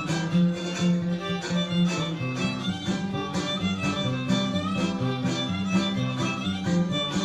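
Huasteco string trio playing an instrumental polka: a violin carries the melody over strummed jarana and the bass notes of a huapanguera, with a steady strummed beat.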